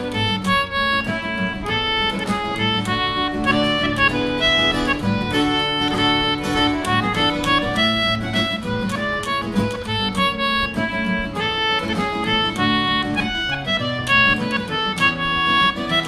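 Concertina and acoustic guitar playing a tune together: the concertina carries a quick melody of many short notes over the guitar's chords, at a steady level.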